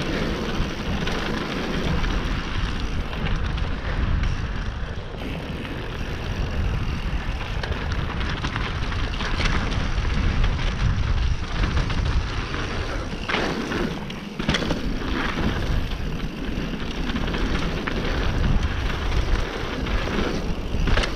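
Mountain bike riding fast down a dirt and loose-rock singletrack: tyres rolling over the rough trail, the bike rattling over bumps, and wind buffeting the camera microphone. A few sharper knocks from bumps or rock strikes come around the middle.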